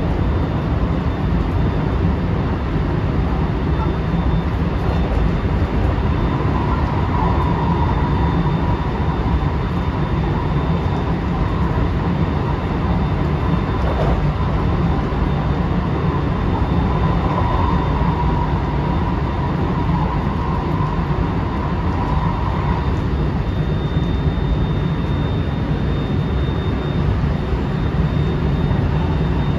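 Running noise inside a JR West 223 series 2000 subseries motor car, which has a Hitachi IGBT traction inverter, cruising at speed: a steady heavy rumble of wheels on rail and traction motors under a faint steady high whine. A higher hum swells and fades through the middle, with one light knock about halfway through.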